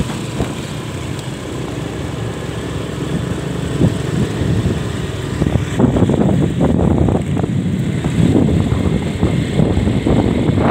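Motorcycle engine running while riding, with wind buffeting the microphone; the rumble grows louder and rougher about six seconds in.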